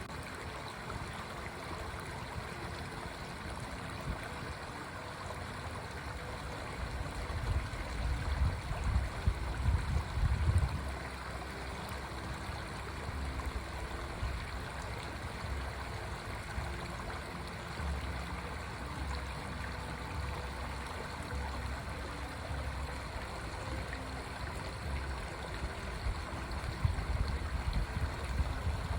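Stream water running steadily, with low rumbles that swell about eight to eleven seconds in and again near the end.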